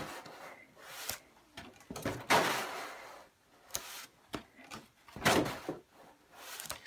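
Pages of a big book being turned by hand, one after another: several papery swishes and rustles, the longest about two seconds in.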